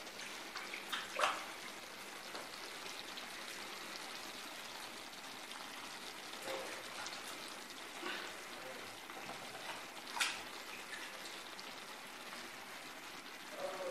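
Meat and vegetables sizzling softly in a clay tagine over a gas flame, a steady faint hiss, with a few light knocks as potato wedges are set into the pot.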